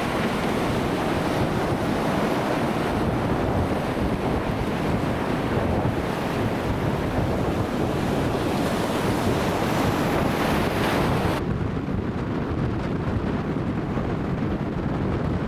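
Wind buffeting the microphone over breaking ocean surf, a steady rushing noise. About eleven seconds in, the hiss suddenly drops away, leaving mostly a low wind rumble until near the end.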